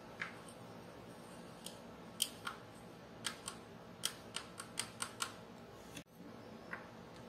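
Fingers and fingernails tapping and clicking on the tail section and tail light of a 1:12 scale diecast Kawasaki Ninja H2R model: a dozen or so small, sharp clicks, bunched in the middle, over a faint steady hum.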